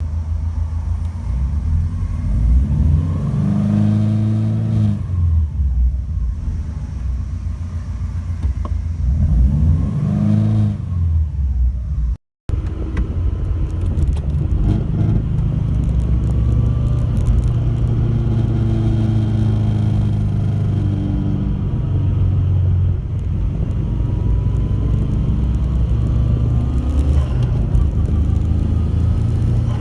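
Subaru Impreza wagon's engine and drivetrain while driving: the engine note rises and falls twice, then after a short break it runs as a steadier drone. This is the car's abnormal noise.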